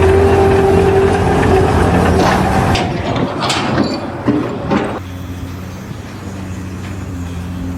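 A vehicle or machine engine running steadily, with a few knocks a little before a sudden change about five seconds in to a quieter, different steady engine hum.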